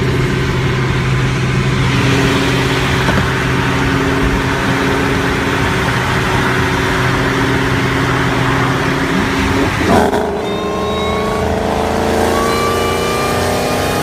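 V8 car engine heard from inside the cabin, holding a steady cruise, then floored about nine seconds in. The engine note jumps with a thump, then climbs steadily under hard acceleration, with a thin rising whine above it.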